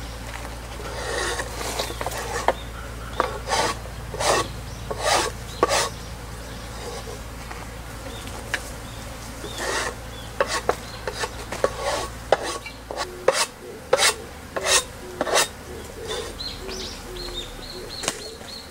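Repeated rough scraping strokes, a scraper cleaning a beehive's bottom board, coming in short irregular runs with pauses between them.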